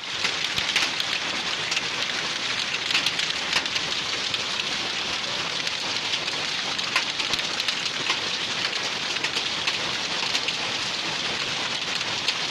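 Hailstorm: hail and heavy rain falling, a steady hiss broken by many sharp ticks of hailstones striking.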